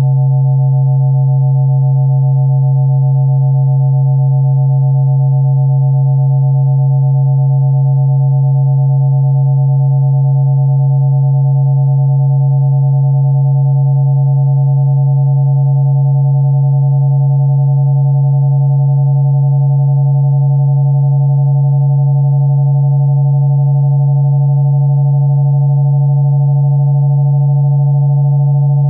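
Synthesized electronic tone generated in Mathematica from a Möbius strip shape: a steady low hum with four fainter, higher steady tones above it, held without change.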